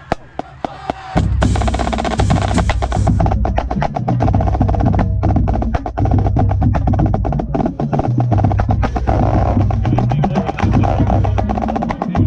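Marching drumline playing, with the snare drum close by: evenly spaced sharp clicks keep time at first, then about a second in the full line comes in loudly with rapid snare strokes over booming bass drums.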